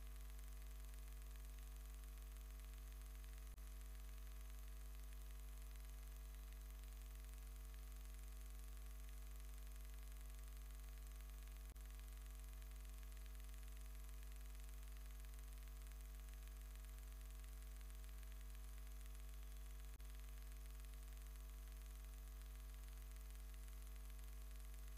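Steady electrical mains hum with a faint hiss, a low buzz with several higher overtones that never changes. Faint clicks come three times, about eight seconds apart.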